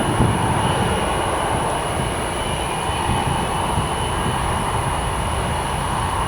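Airbus A320's twin turbofan jet engines running in its takeoff run, a steady rumble and hiss with faint high tones above it.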